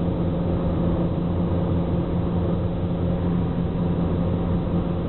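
Car engine and tyre noise heard from inside the cabin while cruising at a steady speed: a constant low hum with road rumble.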